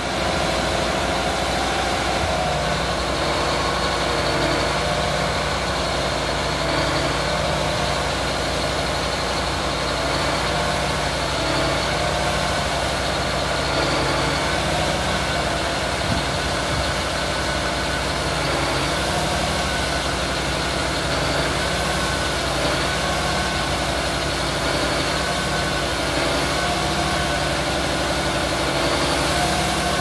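Case IH Quad Track tractor's diesel engine running steadily at low speed, a constant hum with no change in pitch or load.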